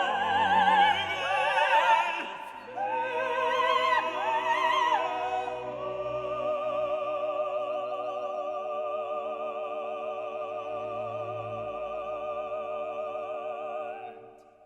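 Operatic singing with orchestral accompaniment: a voice with strong vibrato moves through a phrase, then holds one long note that fades out near the end.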